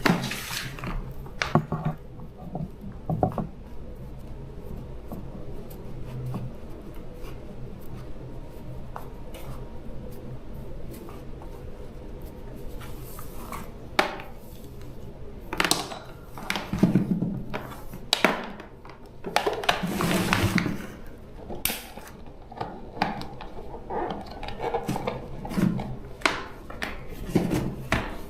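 Scattered clicks, taps and short scraping and rubbing sounds of hand tools and small parts being handled, over a faint steady low hum.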